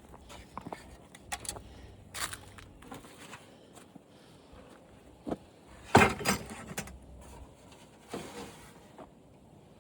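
Plastic parts from a dismantled TV being handled and set down: scattered light clicks and knocks, with a louder clatter about six seconds in and a short scrape near the end.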